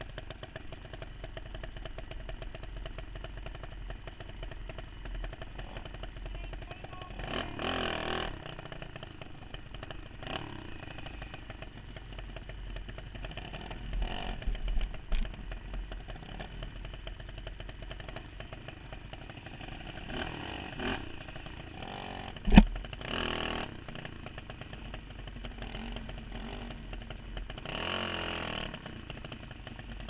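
Go-kart engine running, picked up by a camera mounted on the kart, with a steady drone and a few short louder swells. A single sharp knock about two-thirds of the way through is the loudest sound.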